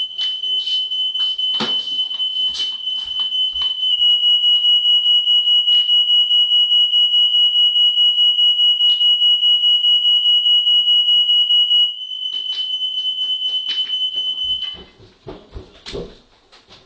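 Smoke alarm sounding one continuous high-pitched tone. It grows louder and flutters rapidly for several seconds in the middle, then drops back and cuts off a couple of seconds before the end, with a few knocks early on.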